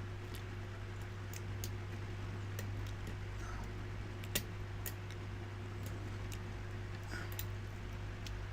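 A lock pick working the pins inside a challenge padlock, giving scattered small metallic clicks at an irregular pace, one louder about four seconds in. A steady low electrical hum runs underneath.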